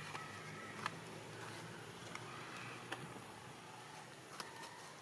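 Quiet outdoor background with a few faint sharp clicks spread through it and brief faint high tones.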